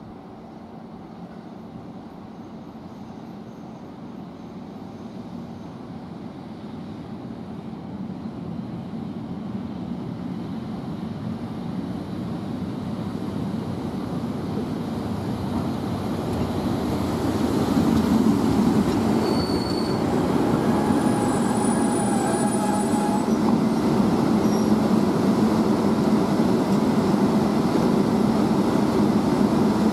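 EP08 electric locomotive hauling a passenger train into a station, growing steadily louder as it approaches, with a few short brake squeals a little past halfway as it slows. It then keeps up a steady running noise alongside the platform.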